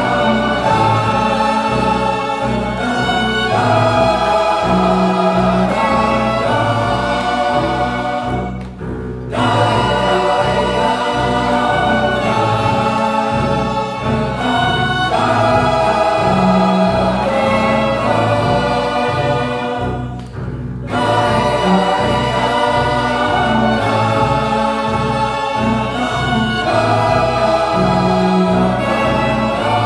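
Men's choir singing in parts, accompanied by violins and cello. The music breaks off briefly twice, about nine and twenty-one seconds in, then comes back at full strength.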